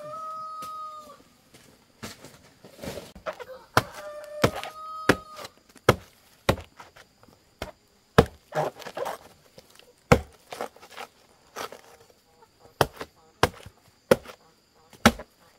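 Blade chopping, a sharp chop roughly once a second at an uneven pace. A chicken calls twice in the first third, each call held about a second.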